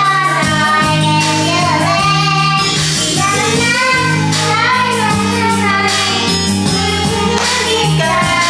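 A young girl singing into a karaoke microphone over backing music.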